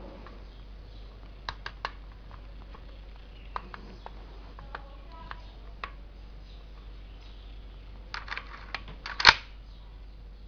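Metallic clicks and clacks of a 44-bore rifle being handled, a few at a time, ending in a quick run of clicks and one much louder clack about nine seconds in.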